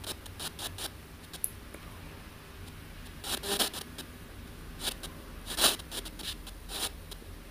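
Irregular short bursts of crackling radio static from an ANC-Mini sweeping spirit-box radio, coming in scattered spurts. The loudest come about three and a half and five and a half seconds in.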